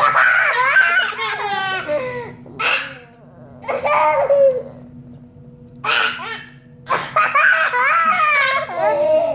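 Young children laughing hard in repeated bursts. The longest bursts come in the first two seconds and again near the end.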